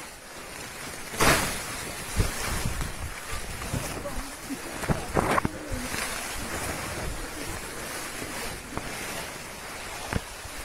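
Tall grass and leaves rustling and brushing against a handheld phone as someone pushes through the bush, with wind buffeting the microphone. There is a loud brush about a second in and a few knocks scattered through.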